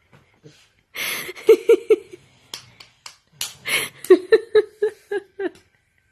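Toddler giggling in two bursts of short high laughs, the second a quick run of about six, each burst starting with a breathy noise.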